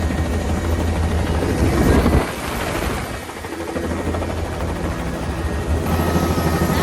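Helicopter rotor and engine running, a steady low pulsing drone; it swells about two seconds in, then drops off briefly before building back up near the end.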